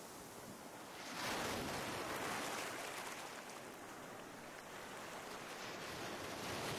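Ocean surf washing onto a beach: a wave surges in about a second in and slowly ebbs away, and the next swells up near the end.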